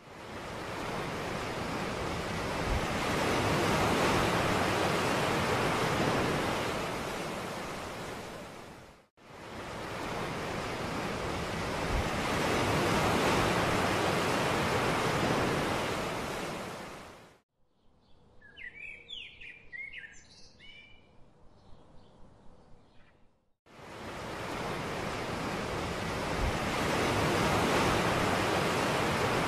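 Ocean surf washing onto a sandy beach: a broad rushing wash that swells and fades over several seconds, three times, each stretch cutting off abruptly. In between, for about six seconds, the surf drops out and birds chirp.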